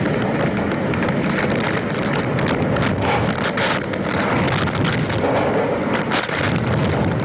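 Cyclone-force wind and heavy rain making a dense, steady roar, with repeated gusts thumping against the microphone.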